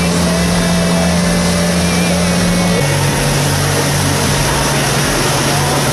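Motorboat engine running at speed under way, towing a tube, over a steady rush of wind and water; the engine note drops a step about three seconds in.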